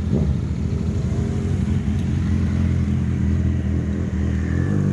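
Motorcycle engines running at low revs close by, a steady low drone.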